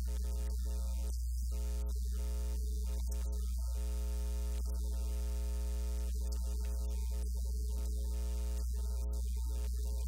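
Steady electrical hum: a constant low drone with a ladder of higher buzzing overtones, unchanging in level. No speech is heard.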